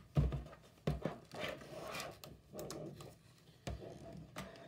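Hard clear-plastic clamshell packaging being handled and wrestled open on a wooden table: a few sharp knocks and clacks, with stretches of plastic rubbing and crinkling in between.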